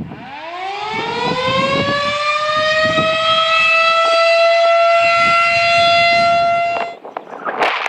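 Federal Signal 2001-SRN outdoor warning siren winding up, its single tone rising over the first couple of seconds and then holding a steady, loud pitch. It cuts off suddenly about seven seconds in.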